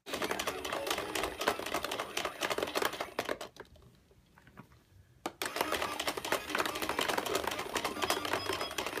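Plastic ball toy clattering: a fast run of clicks and rattles from the small plastic balls and hard toy parts. It thins out about three seconds in and starts up again sharply just after five seconds.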